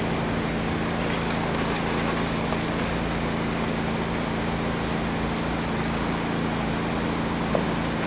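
Steady mechanical drone with a constant low hum under an even background noise, unchanging throughout, with a few faint high ticks.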